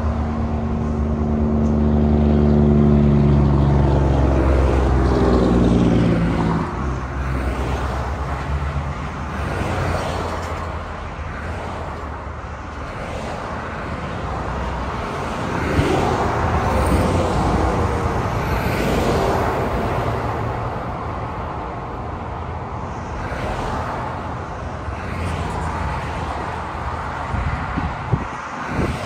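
Highway traffic passing close by: a heavy truck's engine drone drops in pitch as it goes by in the first few seconds, then cars and trucks keep passing with tyre noise swelling and fading.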